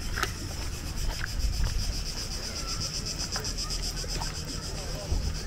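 Cicadas buzzing in a steady chorus with a rapid, even pulse.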